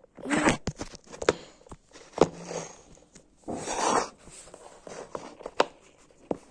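Phone handling noise on its own microphone: rustles and scrapes with several sharp knocks as the phone is moved about and set against a wooden ledge.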